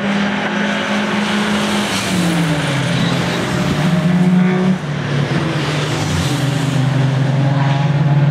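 Sports saloon race cars driving past at racing speed one after another, their engines loud and steady, the engine notes shifting in pitch as each car goes by.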